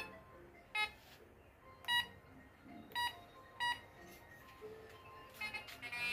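Handheld metal detector beeping as its search coil sweeps over a metal target: four short, separate beeps, then a quick run of stuttering chirps near the end.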